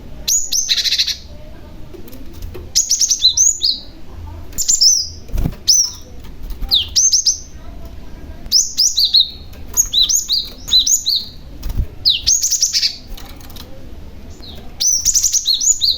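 Cinereous tit (glatik batu) calling and singing: short groups of high, sharp chirps, each group of a few quick notes, repeated every second or two.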